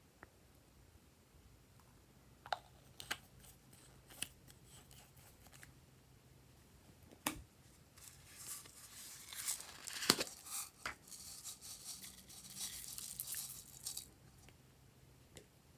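Glossy slime being worked by hand: a few sharp sticky clicks, then, from about eight seconds in, some six seconds of dense crackling and tearing as the slime is stretched and pulled apart.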